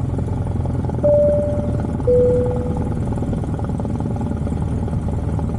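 Cessna light aircraft's piston engine and propeller running with a steady low drone. Two short clear tones sound over it, about a second in and again about two seconds in, the second lower and fading away.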